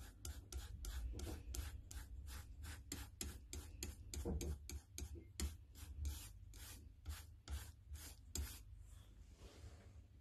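Foam paint brush rubbing in quick short strokes over a laser-cut wooden shape, a faint scuff with each stroke at about three or four a second; the strokes stop near the end.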